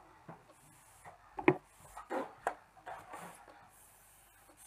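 Close-up handling noise of hair being put up and styled: rustling and rubbing, with a few sharp clicks and knocks. The loudest knock comes about one and a half seconds in, and a cluster follows a little later.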